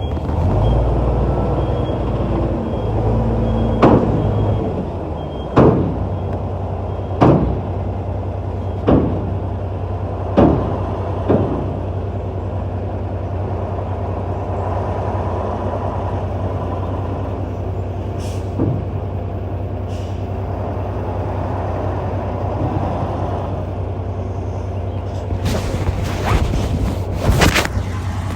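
Diesel engine of heavy earthmoving machinery running steadily, with a series of sharp metallic knocks about every second and a half in the first half and a few short bursts of hiss near the end.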